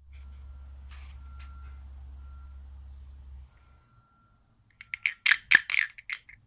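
Low steady hum, then about five seconds in a quick run of sharp clinks with brief ringing, like hard objects being struck or knocked together.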